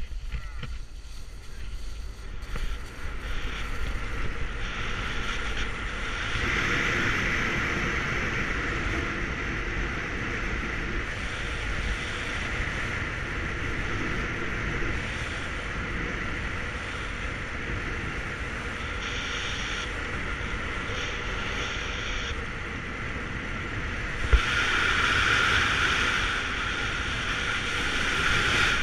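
Rushing air buffeting the microphone of a head-mounted camera during a fast speedriding descent: a steady windy roar with a whistling edge that grows louder about six seconds in and again near the end. A single sharp knock about four seconds before the end.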